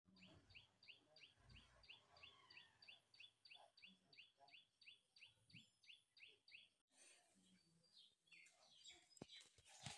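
A bird repeating one short, high chirp that falls in pitch, about three times a second, faint and even. The calls stop abruptly about seven seconds in, leaving faint scattered clicks.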